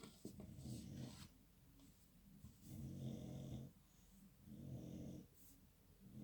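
Faint, rhythmic snoring of a pet: low rumbling breaths about a second long, one roughly every two seconds.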